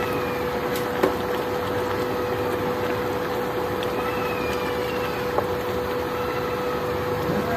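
Steady hum of an induction cooktop running under a pan of simmering curry, with a couple of light knocks as a wooden spatula stirs in the pan.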